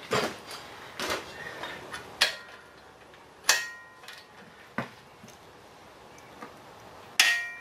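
Scattered metallic clinks and knocks, about six, from a long torque wrench and socket being handled and fitted onto a steel pillow-block bearing cap bolt; two of them ring briefly.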